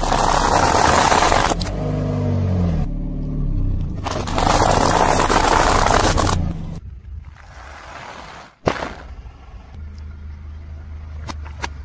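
Car tyres rolling and scraping over objects being crushed, in two loud noisy stretches, with the car's engine briefly heard changing pitch between them; then quieter, with a sharp crack and a few short clicks near the end.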